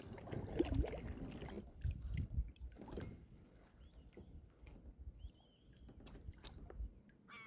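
Water sloshing and splashing around a kayak, with scattered knocks on the hull, while a hooked smallmouth bass is fought from it. The movement is busiest in the first three seconds and eases off afterwards.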